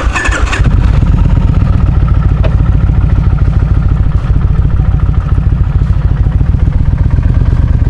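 Kawasaki Vulcan cruiser motorcycle engine running at low speed with a steady, rhythmic beat, coming in loud about half a second in as the bike rolls slowly across a parking lot.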